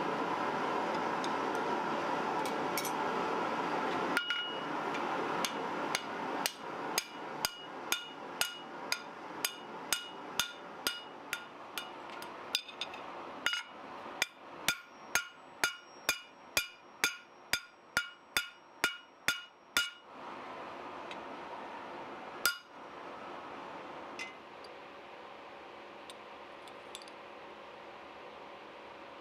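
Hand hammer striking a red-hot metal disc on an anvil, about two blows a second for some fifteen seconds, each blow ringing off the anvil steel, with one last blow a little later. A steady rushing noise comes before the hammering starts.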